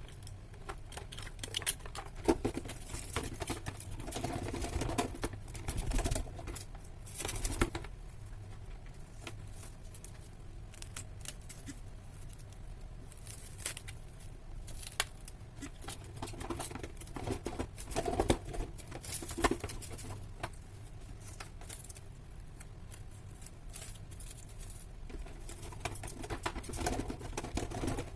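Plastic cling film being pulled from its box and smoothed down over a tray, with irregular crinkling, rustling and small crackles.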